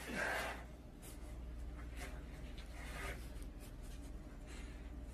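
Faint rustling and scraping of things being handled, over a low steady hum, with a slightly louder rustle right at the start.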